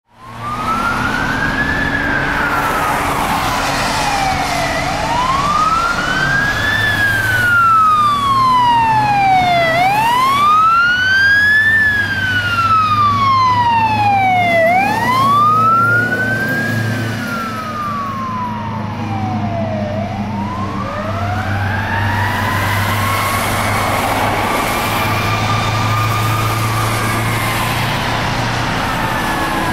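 Fire truck siren on a wail, its pitch climbing and falling about every five seconds, with a low steady drone beneath. After about twenty seconds the sweeps become slower and longer as the truck passes.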